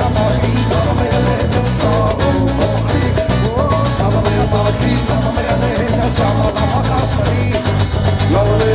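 Irish folk-fusion band playing live: an up-tempo tune with a steady driving beat of drums and bass under a busy, ornamented melody line.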